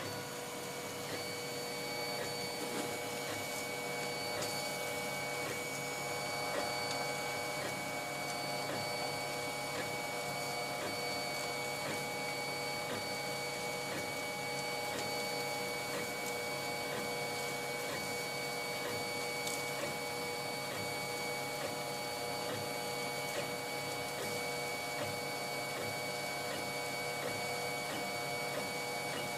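Stepper motors of a homemade 3D printer driving the print head through its first print. They give a steady whine of several held tones at an even level.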